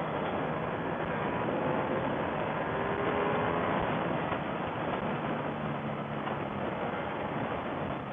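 Heavy wind rush over the microphone at high road speed, with the Ducati Panigale V4S's Desmosedici Stradale V4 engine running underneath. It swells a little a few seconds in as the bike accelerates in fourth gear, and eases off near the end.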